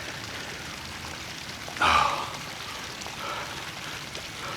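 A man's single heavy exhale about two seconds in as he catches his breath after push-ups, over a steady background hiss.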